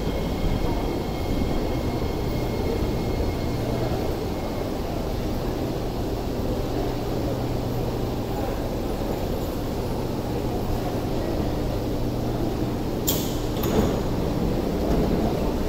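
Kawasaki Heavy Industries & Nippon Sharyo C751B MRT train with Fuji Electric IGBT-VVVF traction equipment slowing alongside the platform and coming to a stop, with a steady low hum and a faint high whine that fades after a few seconds. Two short sharp clicks come near the end.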